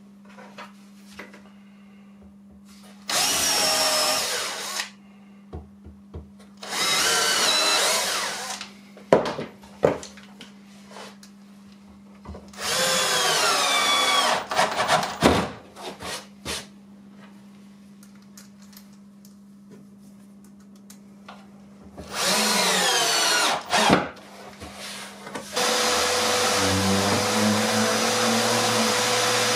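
Bosch Professional cordless drill-driver driving screws into a plywood jig frame in four short bursts, its motor pitch sagging under load during each run, with small clicks and handling knocks between. Near the end a random orbital sander starts and runs steadily.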